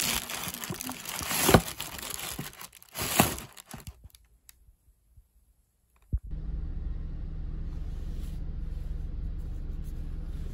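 Crinkling and rustling of a boxed sunscreen pack being handled in its packaging, with a few sharper scrapes. It stops about four seconds in, and after a short silence and a click a steady low hum takes over.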